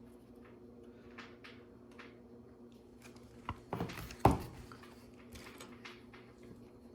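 Small plastic LEGO pieces clicking and rattling as they are handled, with a louder knock about four seconds in, over the steady hum of a refrigerator.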